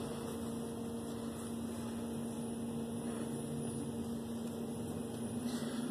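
Steady electrical hum from the equipment of a small electrical room, two even tones over a faint steady rush.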